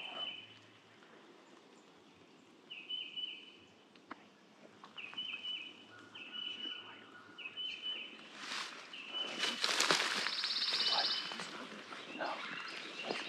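A songbird sings a short call again and again, about once a second. From about two-thirds of the way in, footsteps crunch through dry leaf litter, and they are the loudest sound.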